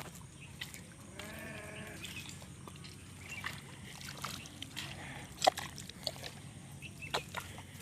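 A single wavering animal call, lasting under a second and starting about a second in, followed by scattered sharp clicks and knocks, the loudest about five and a half seconds in.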